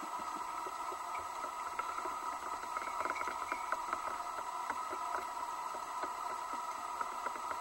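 Underwater sound picked up through a camera housing: a steady mid-pitched hum with faint, irregular clicks and crackles scattered through it.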